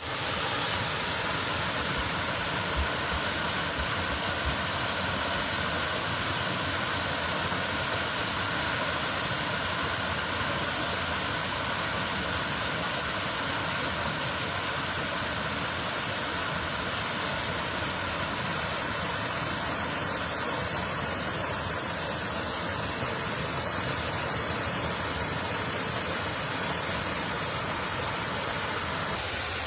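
Swollen creek in flood after more than three inches of rain: a steady, even rush of fast-moving water, with two brief low bumps a few seconds in.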